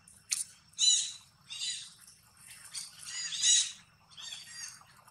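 A string of about six short, high-pitched animal calls, each rising and falling in pitch, the loudest about three and a half seconds in.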